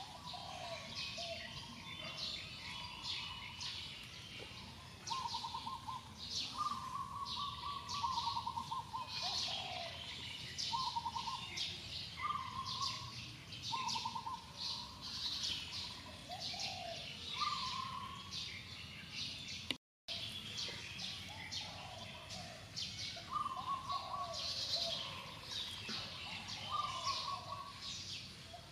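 Several birds chirping and calling without a break: short trilled phrases repeating every second or two, lower swooping whistles, and a dense run of high chirps. The sound drops out completely for a split second about two-thirds of the way through.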